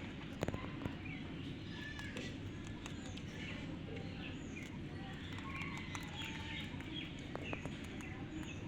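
Birds chirping over a steady low background rumble, with a few sharp clicks about half a second in.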